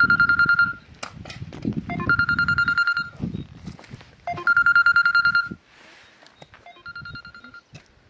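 A telephone ringing: four short bursts of a high, trilling ring about two seconds apart, the last one fainter.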